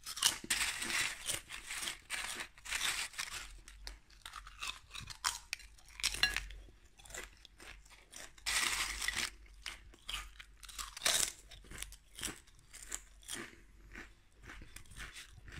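Potato chips being bitten and chewed close to the microphone: crisp, irregular crunching, heaviest in the first few seconds and again around eight to nine seconds in, easing to softer chewing near the end.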